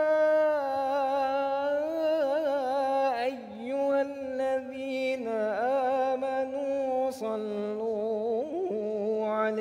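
A man's voice chanting a Quranic verse in Arabic with long, drawn-out melodic notes and ornamented turns of pitch, pausing briefly for breath a few times.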